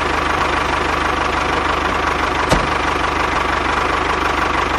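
A small engine running steadily with a fast, even chugging pulse, and one short click about two and a half seconds in.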